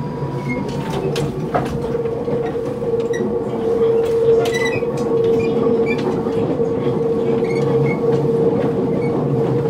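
Running noise of a Toei Mita Line 6300-series early car, heard at the gangway between cars. A steady rumble carries a held tone, with scattered clicks and knocks from the gangway's steel bridge plates and the track. It grows a little louder over the first few seconds.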